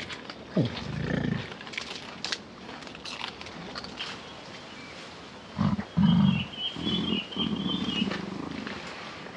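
Lion calling with short, low calls: one about half a second in, then a run of several from about six seconds to eight.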